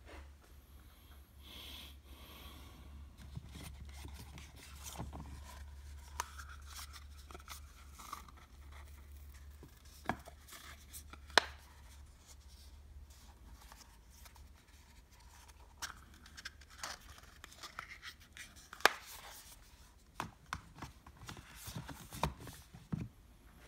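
Small paperboard eyelash boxes being handled: light scraping and rustling of the boxes against each other and the fingers, with scattered sharp clicks and taps, two of them much louder than the rest.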